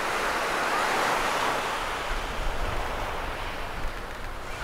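Ocean surf breaking and washing up the beach, swelling about a second in. Strong wind buffets the microphone, adding a low rumble from about two seconds in.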